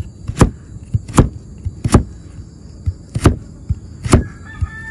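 Knife slicing a carrot lengthwise on a plastic cutting board: five sharp knocks of the blade striking the board, roughly one a second, each just after a faint click as the blade cuts through.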